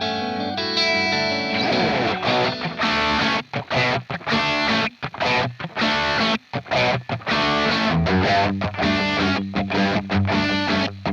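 Fender Limited Stratocaster with Floyd Rose played through distortion: a few held, ringing notes, then from about two seconds in a fast, choppy rock riff with short, abrupt stops.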